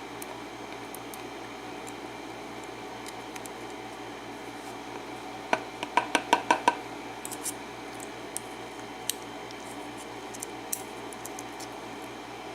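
Small metallic clicks and clinks of brass lock pins and a tool being handled while a pin-tumbler lock cylinder is taken apart, with a quick run of clicks about halfway through and a few single ticks after it, over a faint steady hum.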